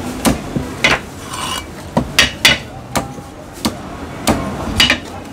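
Heavy Chinese cleaver chopping crispy-skinned roast pork on a thick wooden chopping block: about ten sharp chops at an uneven pace.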